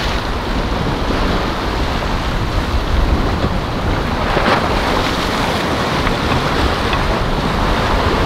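Wind buffeting the microphone over the steady wash of choppy sea and breaking waves in the inlet.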